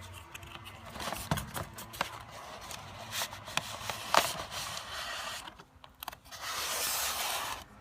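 Packaging being handled: a cardboard box and expanded polystyrene tray knocking and clicking, then a longer scraping rub near the end.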